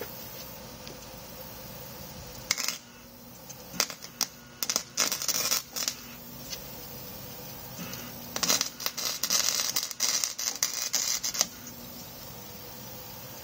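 Wire-feed welder arc-welding steel angle iron, crackling and sputtering in short bursts as corner welds are laid: a brief one, then a broken run, then a longer run of about three seconds.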